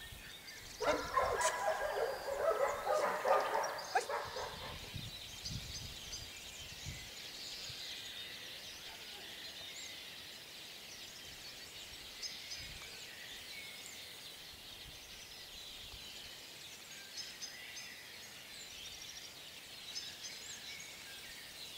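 Faint background birdsong, scattered small chirps over quiet outdoor ambience. About a second in, a louder rough sound with many tones stacked together lasts about four seconds.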